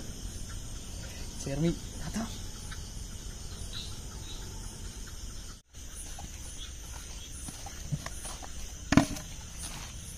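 Night insects, crickets, trilling steadily in a high continuous chorus, with a few light footsteps and knocks on dirt ground and one sharp knock near the end. The sound drops out for a moment about halfway through.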